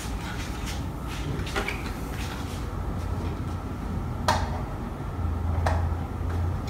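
A portable PA speaker being lifted and seated onto a speaker stand's pole, with a few sharp knocks and clunks as it is handled, the clearest near the middle and about a second later, over a steady low hum.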